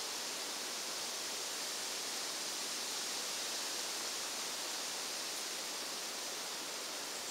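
A steady hiss, strongest in the upper range, with no distinct sounds standing out.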